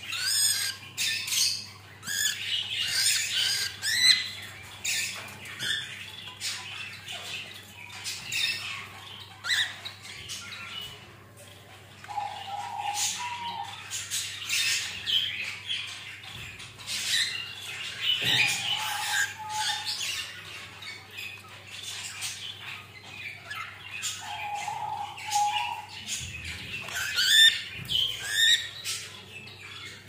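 Several cockatiels calling: a busy run of short, high chirps and squawks, with a few longer, lower held notes.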